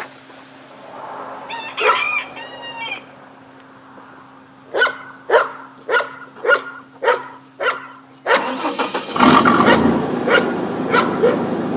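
A rooster crows once, then six short animal calls come about half a second apart. About eight seconds in, a loud machine starts up suddenly and keeps running with a steady noise.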